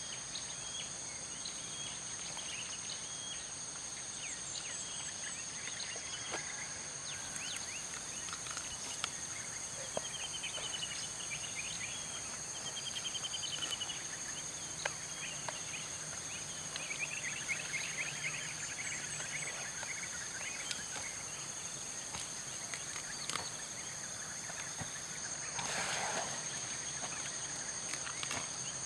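Tropical jungle ambience: a steady high-pitched insect drone, with birds calling in short, rapid trills. Near the end comes a louder, lower call lasting about a second.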